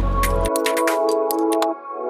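Electronic background music: sustained synth chords with a high ticking beat. The bass drops out about half a second in.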